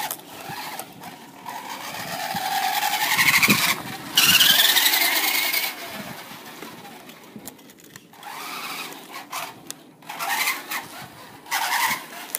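Electric motor of an RC toy Hummer whining as the car drives, rising in pitch twice as it speeds up about two and four seconds in, then running in shorter spurts.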